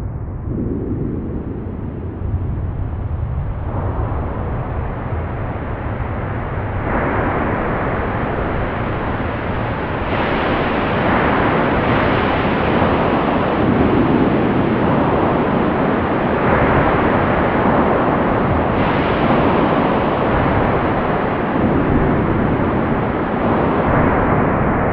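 Steady roar of a waterfall, a rushing noise with no pitch that grows louder and brighter in several steps over the first ten seconds.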